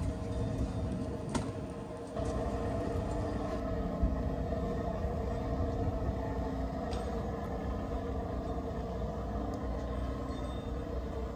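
A steady low mechanical rumble with a constant hum, like a running engine, stepping up a little about two seconds in. A single brief click about four seconds in.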